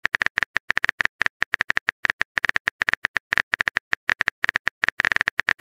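Simulated phone-keyboard typing sound effect from a texting-story app: a rapid, steady run of short clicks, one per keystroke, as a message is typed out.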